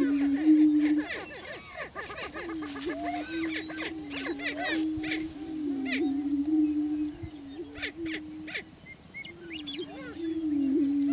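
Male greater prairie chickens booming on a lek: low, drawn-out moaning calls, one after another with brief breaks. Short, sharp cackling calls come over them, thickest in the first half and again about eight seconds in.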